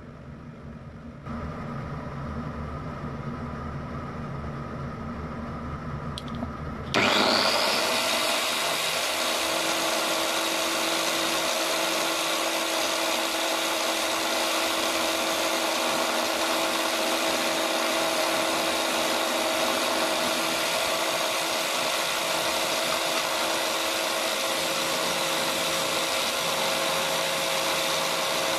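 Angle grinder fitted with a buffing disc, switched on about seven seconds in: a rising whine as it spins up, then running steadily at full speed, used to polish a small metal jig. Before it starts, a low machine hum.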